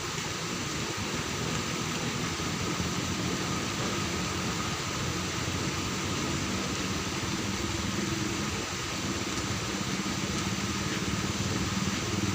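Steady mechanical hum under a constant hiss, like a motor or machine running continuously, with no change in pitch or level.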